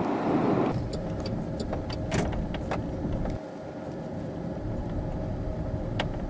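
Car's road and tyre noise heard from inside the cabin, steady at first, then quieter in two steps, after about a second and again about three and a half seconds in. Scattered light ticks run through it.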